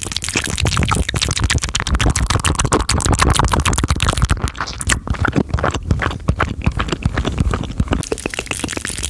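Fast, intense close-microphone mouth sounds: a dense, rapid stream of wet clicks and smacks, thinning out for a moment about halfway through.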